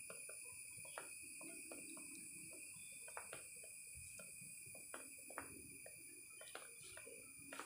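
Faint, scattered crackles and ticks of a small kitten moving and nosing about in dry grass and leaves, over a faint steady high-pitched hum.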